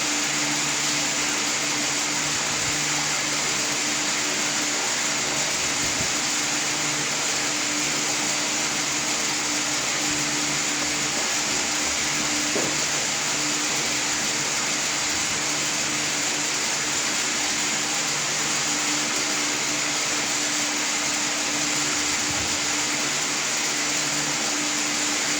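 Steady machine whir with a low hum, running unchanged throughout.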